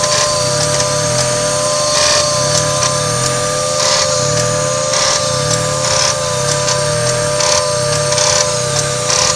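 Mazda MX-3 engine idling with a click about once a second that comes with the air conditioning on; at each click the idle dips and recovers, with a slight rattle.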